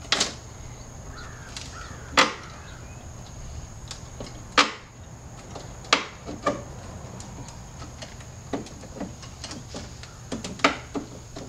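Plastic reverse light housing on a BMW E46 M3 trunk lid being worked loose by hand: a series of sharp clicks and knocks, a second or more apart.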